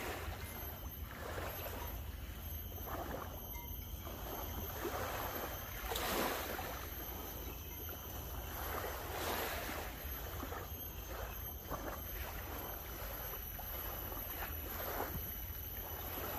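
Wind on the microphone with a constant low rumble, over small waves washing on a sandy shore, with louder swells of noise about six and nine seconds in.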